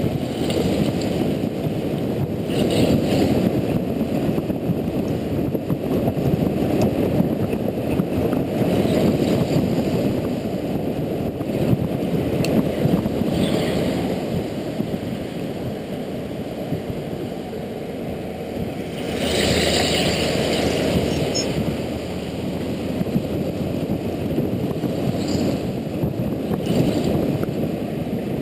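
Wind rushing over the camera microphone with road noise from a moving motorcycle, muffled and steady. About two-thirds of the way through, a louder hiss lasts a few seconds.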